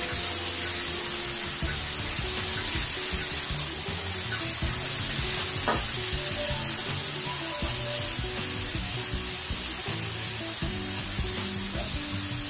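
Food frying in hot oil in a pan, with a steady sizzle, likely the bay leaves and vegetables of a vegetable curry. There is one light tap about halfway through.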